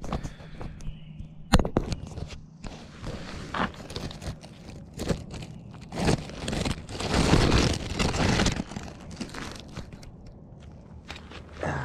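Footsteps crunching on a gravel driveway, with irregular knocks and scuffs close to the microphone. The crunching is loudest and densest from about six to eight and a half seconds in.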